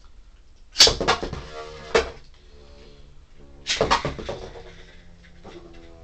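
Beyblade spinning tops in a plastic stadium: a loud rattling clatter as they are launched in and knock together, a sharp clash about two seconds in, and another burst of clatter near four seconds. Then a steady whirring hum as both tops keep spinning.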